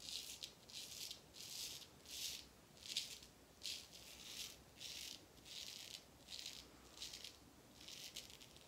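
Filarmonica 14 straight razor scraping lathered stubble off the neck in short strokes, about a dozen, roughly one every two-thirds of a second, each a faint, crisp rasp.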